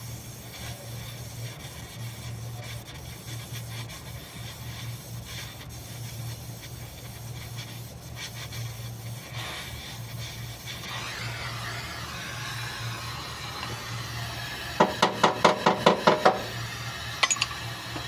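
Gas welding torch flame hissing steadily as filler rod is melted into a weld on a car's steel chassis rail, over a steady low hum. Near the end, a quick run of about eight sharp knocks in a second and a half, then two more.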